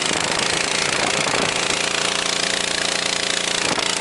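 Small engine of a fire-skid water pump running steadily at full throttle, driving the pump with water flowing through a cracked-open recirculation valve.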